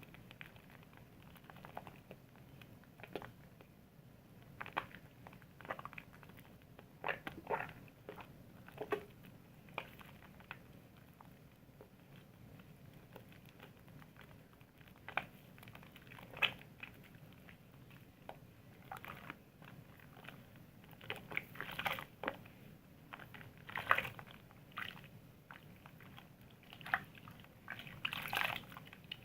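Wet soap being lathered: soft, irregular squishing and crackling, busier in the second half.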